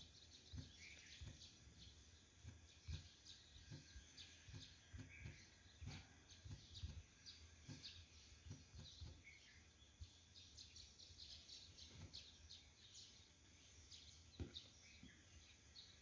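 Near silence: faint, scattered bird chirps in the background and soft, irregular taps of fingertips typing on a smartphone touchscreen.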